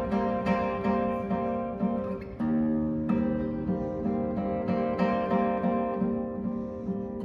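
Classical guitar played fingerstyle: quick, evenly repeated plucked notes over held bass notes, the bass moving to a new note about two and a half seconds in.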